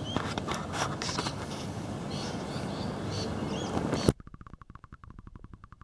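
Outdoor river ambience: rushing water noise with a few short bird chirps. About four seconds in there is a splash-like thump as the microphone goes under the water, and the sound turns muffled and much quieter, with a fast run of faint clicks.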